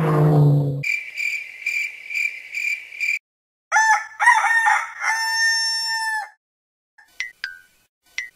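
Cartoon sound effects: a regular chirping, about two and a half chirps a second, then a rooster crowing once in a long drawn-out call about four seconds in, as a morning wake-up cue. A few short high blips follow near the end.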